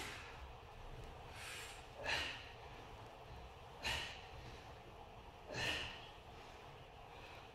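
A man's hard exertion breathing while squatting with a heavy tan: three loud, sharp breaths out at about two-second intervals, the first with a quieter breath just before it, and a fainter one near the end.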